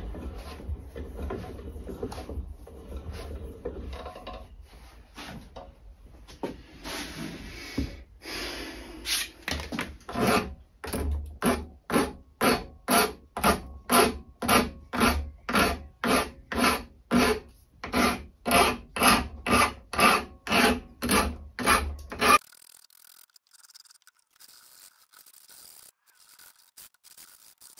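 Hand file rasping across the edges of a small cast-iron model steam engine flywheel. The strokes are irregular at first, then settle into a steady rhythm of about two a second, and stop abruptly a few seconds before the end.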